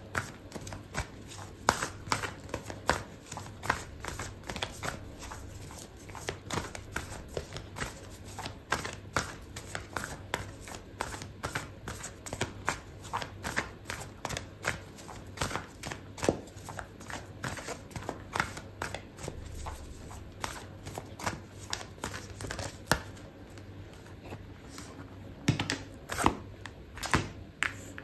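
Oracle card deck being shuffled by hand: a long run of soft, irregular card clicks and riffles, several a second, with a few louder slaps near the end.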